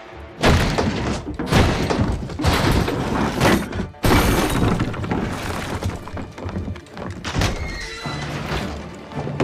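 Dramatic film score, loud and dense, with heavy percussive hits, starting suddenly about half a second in.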